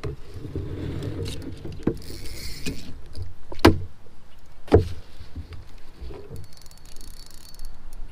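Handling noise from a kayak while reeling in a hooked smallmouth bass: low rumbling and rubbing, then two sharp knocks a little over a second apart near the middle.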